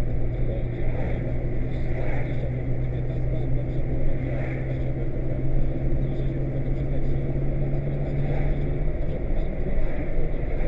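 Car interior while driving: steady engine and road noise. A low steady hum stops about nine seconds in.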